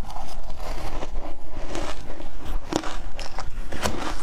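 Ice coated in matcha powder being bitten and chewed, a run of irregular crunches one after another.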